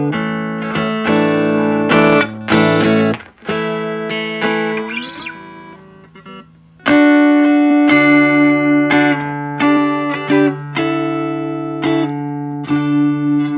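Electric guitar played through a 5F6A (tweed Bassman-style) tube amplifier. Chords are struck repeatedly, let ring and die away a few seconds in, then the playing starts again loudly about seven seconds in.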